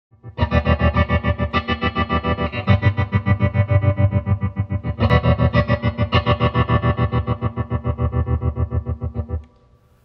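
Electric guitar chords through a Chase Bliss Gravitas analog tremolo pedal in a hard on-off chop setting, the sound cut into rapid even pulses, about eight a second. The pedal's sway is being modulated, so the length of each 'on' slice grows and shrinks slightly. The playing stops suddenly near the end.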